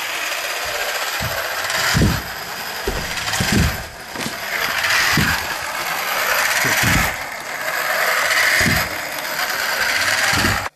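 3D-printed walking robot's electric motor and printed plastic gears running under load on a 12-volt battery: a steady grinding whir with irregular low knocks as the legs move. The motor is straining a little.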